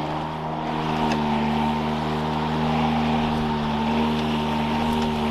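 Toro 60V Flex Force 22-inch battery-powered lawn mower running and cutting grass: a steady hum from the motor and spinning blade, stepping up slightly in pitch about a second in.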